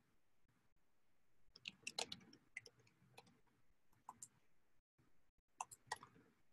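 Near silence broken by a few faint clusters of sharp clicks: a handful about one and a half to two and a half seconds in, a couple around four seconds, and another cluster near the end.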